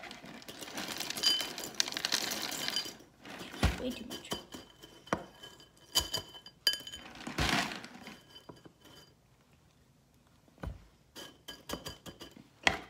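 Dry cereal poured from a clear container into a ceramic bowl, rattling for about three seconds, with another short rattle a little past halfway. Between and after the pours come scattered clinks and taps as a hand moves the cereal around in the bowl.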